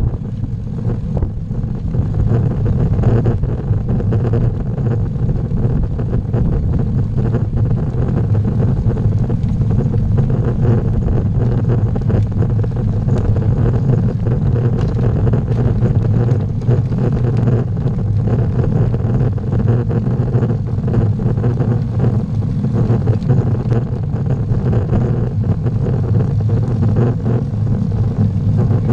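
Steady low rumble of wind and road vibration on a bicycle-mounted camera's microphone while riding a road bike uphill.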